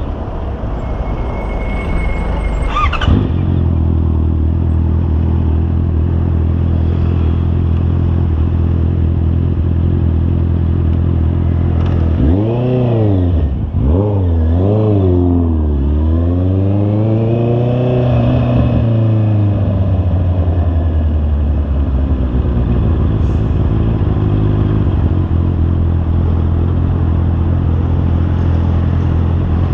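Honda CB650R inline-four engine running at a steady pitch while riding. It swings up and down in pitch several times around the middle as it revs, then settles back to a steady run.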